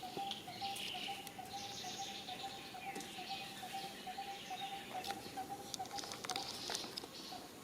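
Birds chirping and calling in outdoor ambience over a steady, thin wavering tone, with a cluster of short clicks or rustles between about five and seven seconds in.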